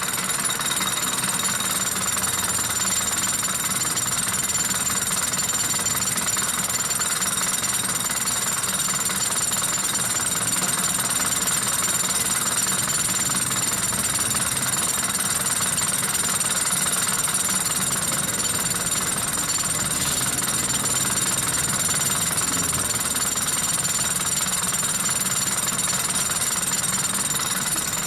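Isuzu 4JA1 four-cylinder diesel engine running at a steady idle with its rapid, even diesel clatter.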